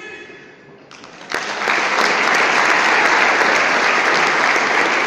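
Audience applause, starting after a short lull a little over a second in and then going on steadily.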